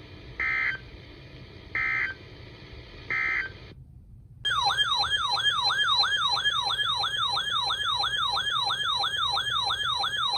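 Emergency Alert System audio: three short data-burst chirps about a second apart, the end-of-message code closing the previous warning. After a brief pause comes a loud warbling, siren-like alert tone that sweeps up and down about three times a second.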